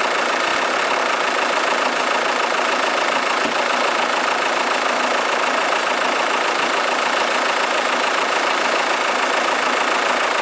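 Audi A3 2.0 TDI four-cylinder turbodiesel engine idling steadily.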